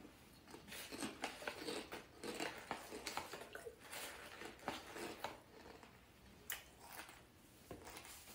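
Faint chewing and crunching of a snack in the mouth, with crinkling as a hand reaches into the snack bag. The crunches come irregularly and close together at first, then thin out after about five seconds to a few single clicks.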